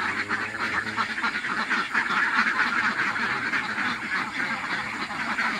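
A large flock of egg-laying domestic ducks quacking continuously, with many calls overlapping into a steady chatter.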